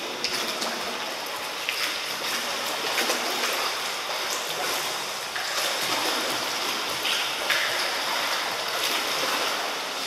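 Steady rush and lapping of water in an indoor swimming pool, with a few faint clicks.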